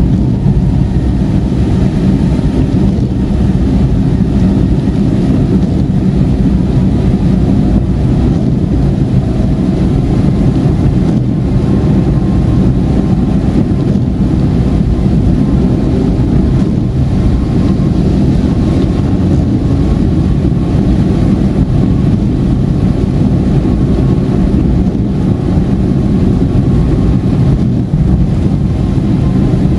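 Steady low rumble of a car driving on a wet highway, heard inside the cabin: tyre and engine noise.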